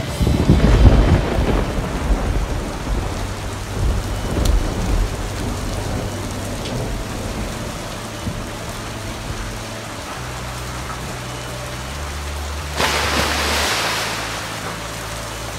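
Heavy rain pouring down steadily, with a rumble of thunder in the first few seconds. About thirteen seconds in the downpour surges briefly louder.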